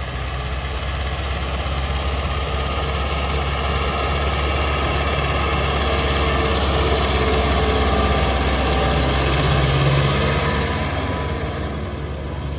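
A Mahindra Arjun Novo 75 hp tractor's diesel engine running steadily as it pulls a 36-disc harrow through the soil. The engine grows a little louder about ten seconds in, then eases off.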